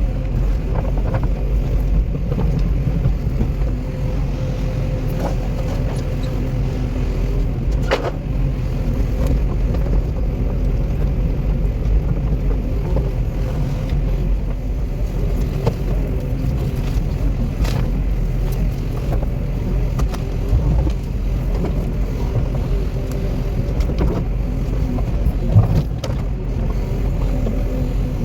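Tracked excavator's diesel engine running steadily, a continuous low rumble with a few brief knocks.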